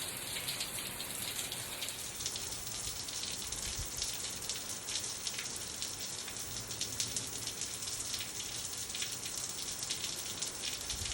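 Steady rain falling, with many small individual drop ticks over an even hiss.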